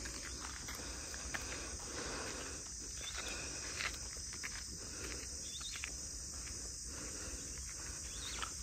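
Steady chorus of insects, a continuous high-pitched hum, with faint scattered ticks and scuffs.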